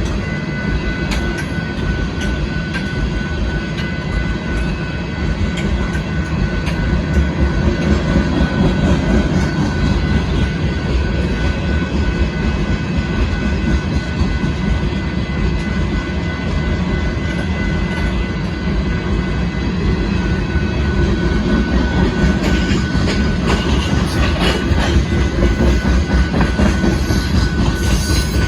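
Freight cars of a Union Pacific rock train rolling steadily past: a continuous rumble of steel wheels on rail with light clicking from the rail joints. Two thin steady high tones ring over it.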